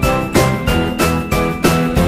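Upbeat background music with a steady beat of about three strokes a second and a high, bell-like tinkling melody over it.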